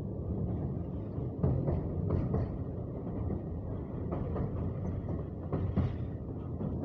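Passenger train running at speed: a steady rumble of wheels on rail with sharp clanks at irregular intervals from rail joints.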